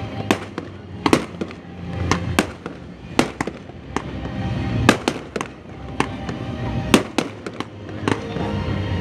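Fireworks bursting in a rapid, irregular run of sharp bangs, several a second at times, over music playing in the background.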